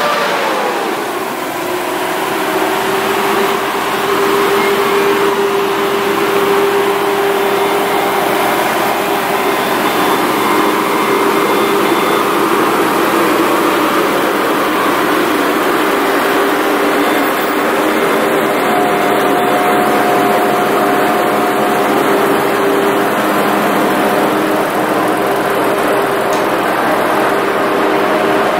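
Trenitalia Swing diesel railcar pulling in. Its engine tone falls in pitch during the first two seconds as it slows to a stop, then its diesel engines run steadily while it stands at the platform.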